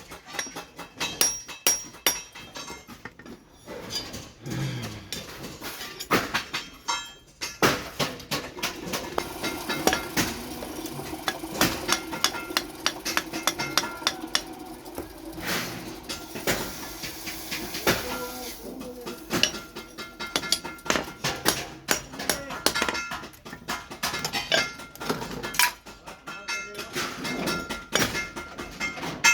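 Hand hammer blows on steel at the anvil, a fast, irregular run of strikes, each ringing on in a metallic tone. Through the middle stretch a steady hum runs under the strikes.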